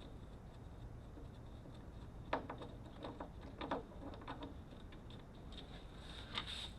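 Faint, irregular clicks and taps of a Torx screwdriver working screws out of a Jeep door's handle and trim, with a short scrape about six seconds in.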